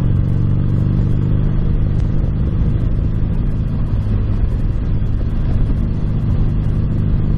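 Motorcycle engine running steadily while riding, its low drone holding an even pitch, with wind rushing over the microphone.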